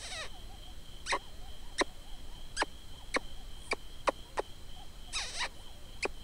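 Lip squeaking: a hunter's mouth-made, mouse-like squeaks, about ten short sharp ones at uneven spacing and one longer drawn-out squeak about five seconds in. They imitate a distressed rodent to lure a coyote in.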